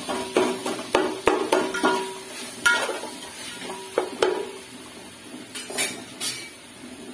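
Metal spatula stirring in a large aluminium cooking pot, clanking and scraping against its sides and bottom with a short ringing note after each knock. The clanks come every half second or so and die away after about four seconds.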